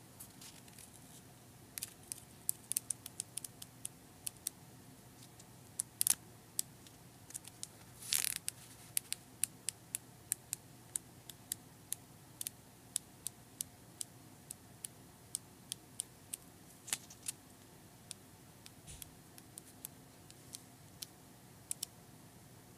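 Pages of a paper sticky-note pad flipped one at a time, each page snapping off the thumb with a light paper tick, about two to three a second. Twice in the first half a longer paper rustle comes through.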